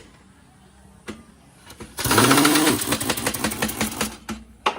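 Impact wrench run in one burst of about two seconds, spinning up and then rattling rapidly as it tightens the wheel nuts on a freshly fitted tractor tyre. A click comes about a second in, and a short knock near the end.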